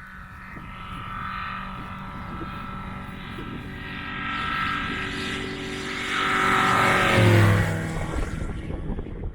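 Big-bore Rotax 912 flat-four engine and propeller of a RANS light aircraft at takeoff power, getting louder. About seven seconds in it peaks and drops in pitch, as if passing by.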